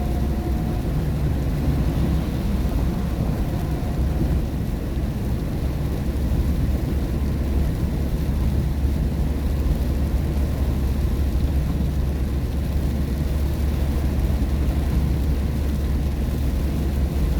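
Steady low rumble of a car's tyres and engine heard inside the cabin, driving on a rain-wet road.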